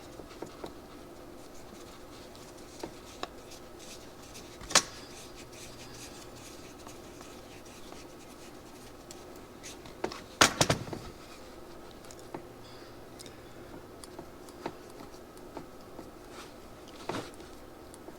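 Small screwdriver and tiny metal screws clicking and tapping as the throttle butterfly screws are fitted into a go-kart carburetor, with a louder cluster of clicks about ten seconds in.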